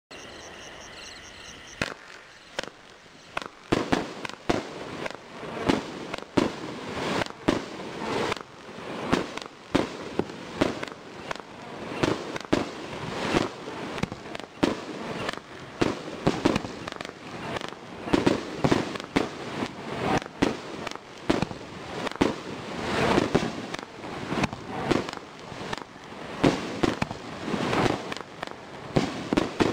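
Consumer fireworks cake firing shot after shot, starting about two seconds in: sharp reports about one or two a second, with the odd quick pair, as each shell launches and bursts.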